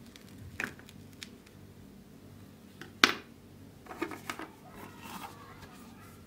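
Plastic knife cutting through packed kinetic sand, making short crunchy scrapes. A sharp click about three seconds in is the loudest sound. Further scrapes and taps follow as the plastic tools are handled.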